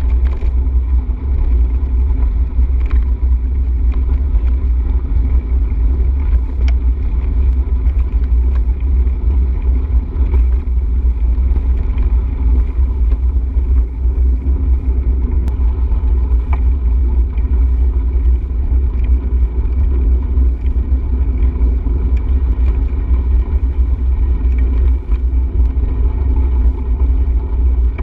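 Steady, loud wind rumble buffeting the microphone of a camera riding along on a moving bicycle, deep and unbroken throughout.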